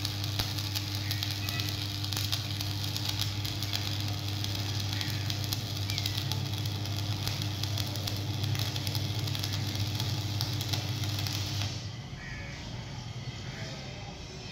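Stick (shielded metal arc) welding on a steel pipe: the arc crackles and sizzles steadily with a fine spatter of pops over a low hum, and it all cuts off suddenly about twelve seconds in as the arc is broken.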